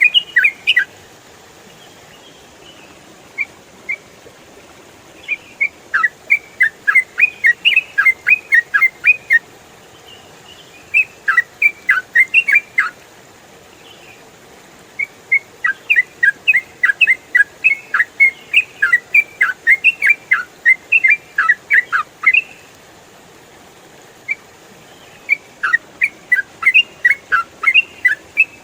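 Yellow-vented bulbul (trucukan) singing rapid, chattering phrases of quick falling whistled notes, in about five bursts separated by short pauses.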